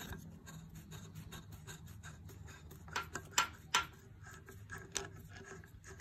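Small metal clicks and rubbing as the knurled bush is spun by hand on the spindle nose of a Blohm surface grinder, unscrewing it to free the grinding hub. There are three sharper clicks about three seconds in and another near five seconds.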